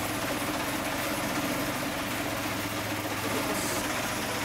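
Small petrol engine of a belt-driven cassava grater running steadily with an even hum.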